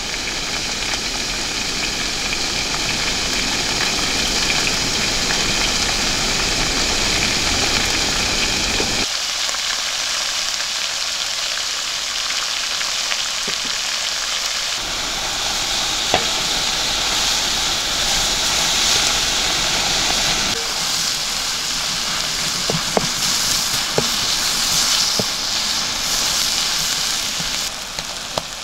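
Chicken pieces and sliced onions sizzling and frying in a wide black pan: a steady hiss whose tone shifts abruptly several times, with a few sharp clicks in the second half.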